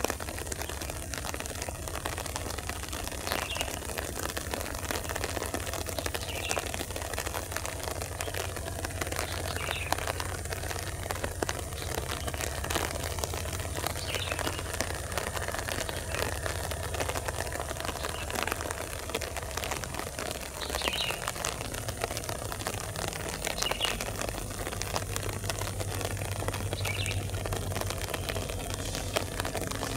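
CC 204 diesel-electric locomotive engine running as the train creeps closer: a low drone that shifts and grows louder about 22 seconds in. A steady hiss underlies it, and short bird chirps come every few seconds.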